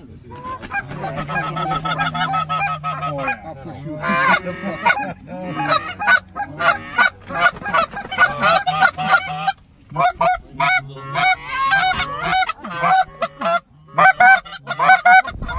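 Flock of geese honking, many short calls overlapping one after another, with a couple of brief lulls.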